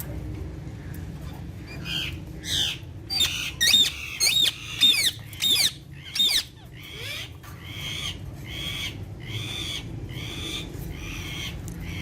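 Alexandrine parakeets calling: a run of loud, harsh screeches with sweeping pitch starting about two seconds in and lasting several seconds, then softer calls repeated evenly, nearly two a second.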